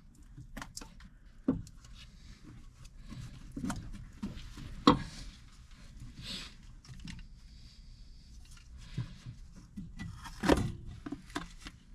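Scattered metallic clicks and knocks of hand tools and parts as the intake manifold is worked off a flathead V8. The sharpest knock comes about five seconds in, with another cluster of knocks around ten and a half seconds.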